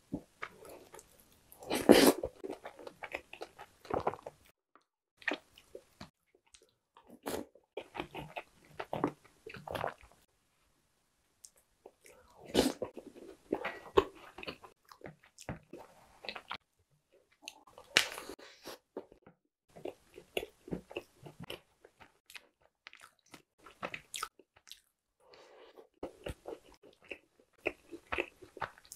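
Close-miked chewing and biting of soft, milk-soaked chocolate pies, cookies and chocolate bread, coming in bursts with short pauses, with sharp clicks of chopsticks and a fork against the ceramic bowl.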